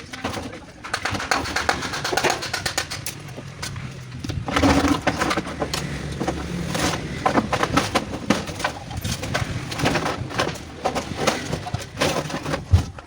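Irregular metal knocking and clattering as refrigerator parts are pried and pulled apart for scrap, with a dove cooing in the background.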